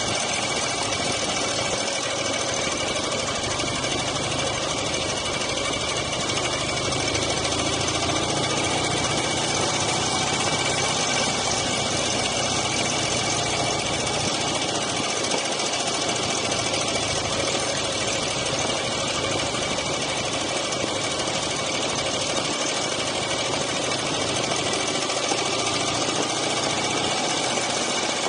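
Dnepr MT9 sidecar motorcycle's flat-twin engine running steadily at an even level, with no change in speed.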